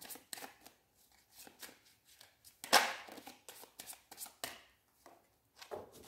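A deck of tarot cards being shuffled by hand: a string of irregular soft clicks and snaps of card on card, with one louder snap about two and a half seconds in.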